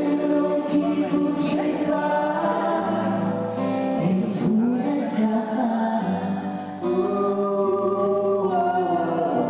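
A group of voices singing a song together to an acoustic guitar accompaniment, with long held notes.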